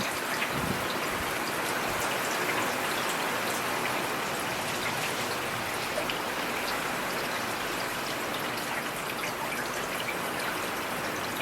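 Steady rainfall, with individual drops striking close by as scattered small ticks.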